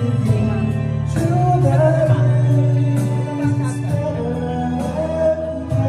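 Live singing through a microphone and PA over amplified backing music, the singer holding long sustained notes.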